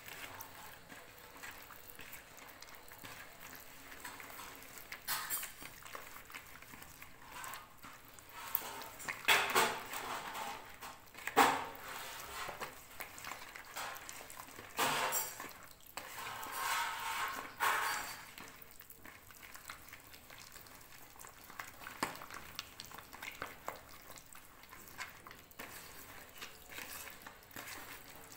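A hand kneading soft butter and oil in a plastic bowl: quiet squishing and squelching, with a few louder bursts of rubbing and scraping against the bowl around the middle.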